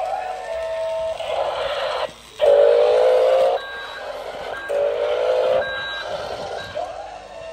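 Electronic sound effects from a radio-controlled toy forklift's small built-in speaker: stretches of simulated engine noise alternate with held warning tones, separated by short gaps, all thin and without bass.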